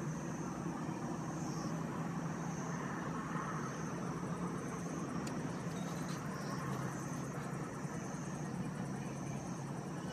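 Steady outdoor evening ambience: a constant low hum under an even hiss, with high, thin insect calls that come in stretches of about a second with short breaks.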